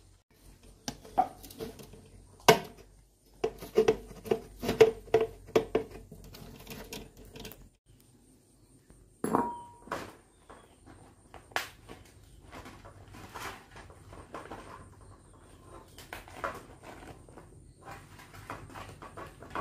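Hands working with leaves and leaf-wrapped sticky rice parcels: an irregular run of knocks, clicks and rustling, with light clinks of dishes, busiest in the first half.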